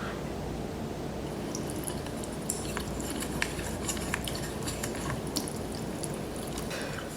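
Close-up wet mouth sounds of someone chewing spicy instant noodles: scattered soft clicks and smacks over steady low background noise.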